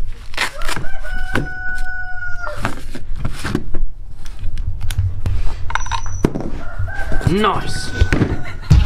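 A rooster crowing: one long held call about a second in and a shorter one near the end, among sharp clicks and knocks of parts being handled on a table.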